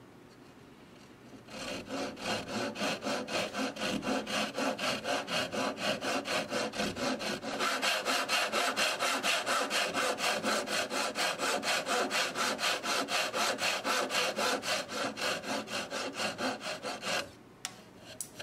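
Metal hand file stroking back and forth across the end of a small wooden dowel, about four quick, even strokes a second, shaping the dowel's end. The filing starts about a second and a half in and stops abruptly near the end, followed by a couple of faint clicks.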